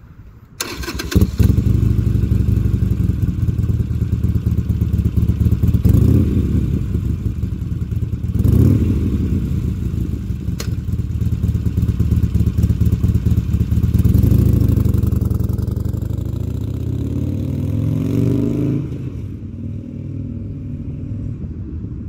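Harley-Davidson Sportster 883 Iron's air-cooled V-twin, breathing through a Supertrapp SuperMeg 2-into-1 exhaust, starts about half a second in and catches almost at once. It idles with a few throttle blips, then pulls away, rising in pitch and growing fainter near the end.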